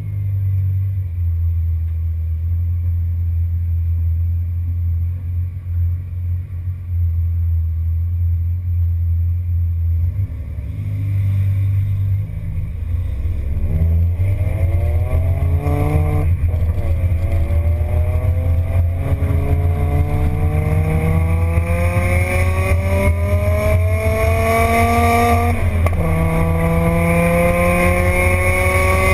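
Twin-supercharged V10 engine of a G-Power BMW E60 M5 Hurricane RR running at a steady idle for about ten seconds, then accelerating hard with the engine pitch climbing. The pitch falls sharply twice, about halfway through and near the end, each time at a gear change, then climbs again.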